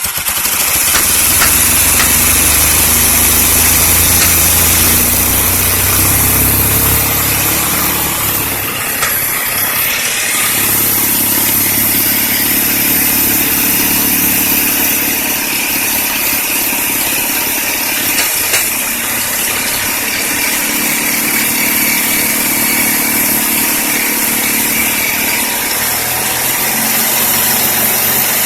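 Daihatsu Zebra engine running, its pitch shifting several times as it is revved up and let back down to idle.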